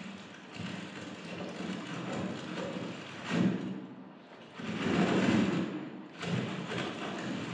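Amplified rustling and crumpling of a white sheet of material handled close to a microphone, a rough noise that swells and fades in surges, loudest about three and a half seconds in and again around five seconds in.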